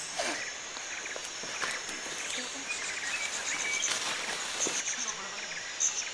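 Forest ambience: a steady insect hum with a few faint bird chirps, and leaves rustling as someone pushes through the undergrowth.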